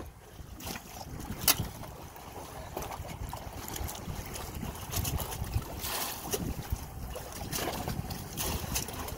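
Wind buffeting the phone's microphone over choppy open water, with a sharp knock about a second and a half in and a few lighter clicks and rustles of handling after it.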